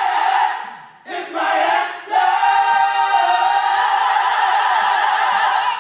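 Church choir singing together, loud and full. The singing fades away and comes back twice in the first two seconds, then holds one long passage.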